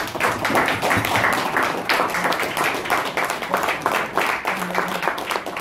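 Applause from a room of dinner guests: many people clapping at once in a dense, steady patter, with a few voices under it.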